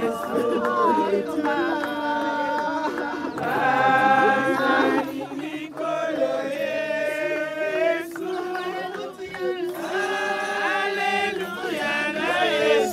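A group of mourners singing together, several voices holding long, slow notes.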